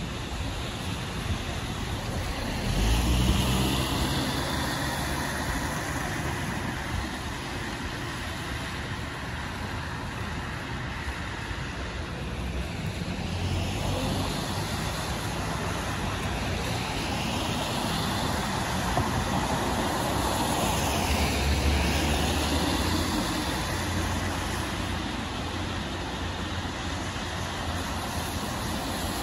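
Road traffic: cars passing one at a time on wet pavement, their tyres hissing. Each pass swells and fades, about three seconds in, again around fourteen seconds, and around twenty-one seconds.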